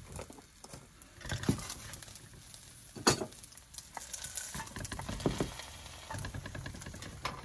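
Butter sizzling under grilled cheese sandwiches in a stainless steel skillet, with a slotted metal spatula knocking and scraping against the pan several times, the sharpest knock about three seconds in.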